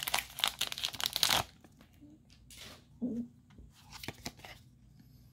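Foil booster pack wrapper crinkling and tearing for about the first second and a half, then quieter rustling and small clicks as the trading cards are handled out of the opened pack.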